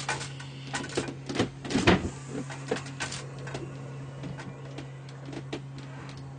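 Irregular clicks and knocks as a long gas lighter wand is worked to light kerosene in a frying pan, loudest about two seconds in and thinning out after three seconds, over a steady low hum.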